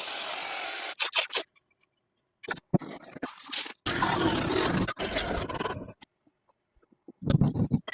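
Scraping and rasping on the rusty steel cleaver during rust removal, in several short spells that cut off suddenly into silence.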